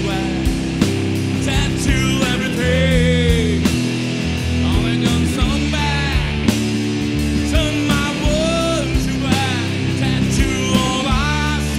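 A rock band playing a song: electric guitars and bass over a drum kit beating steadily, with a singing voice on top.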